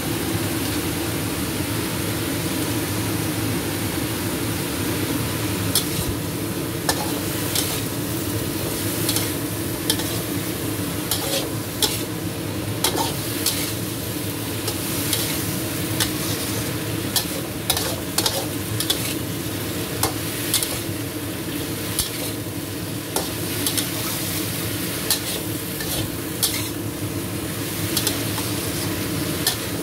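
Spatula scraping and clanking against a wok while stir-frying vegetables over a steady sizzle. The sharp clicks of the spatula on the pan come irregularly from about six seconds in.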